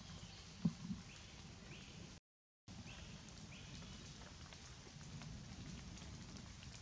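Faint forest ambience: a steady hiss with a few short high chirps, a couple of soft knocks about a second in, and a brief dropout to silence near the middle.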